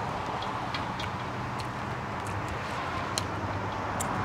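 Steady outdoor background noise with a constant low hum, like engine or traffic noise, and scattered faint clicks.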